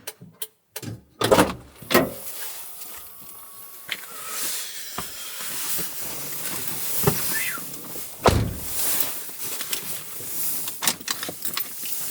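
Irregular handling sounds: a quick run of sharp knocks and clicks, then scraping and rustling broken by single heavier thumps about 5, 7, 8 and 11 seconds in.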